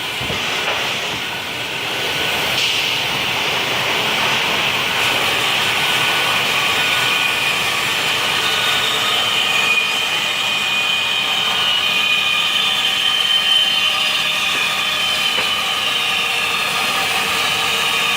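CNC band saw running and cutting wood: a steady, loud high-pitched whine over a sawing rasp, its pitch drifting slightly.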